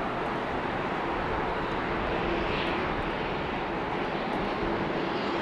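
Jet aircraft engines running, a steady, even noise with a faint held hum beneath it.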